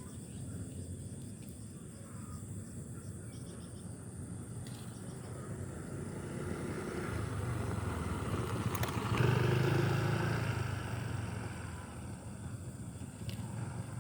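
A motorbike passing by: its engine grows louder over several seconds, is loudest about two-thirds of the way through, then fades away.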